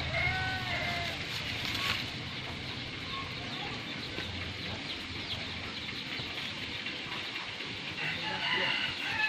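A rooster crowing, the crow trailing off about a second in, and another crow starting near the end, over a steady faint hiss.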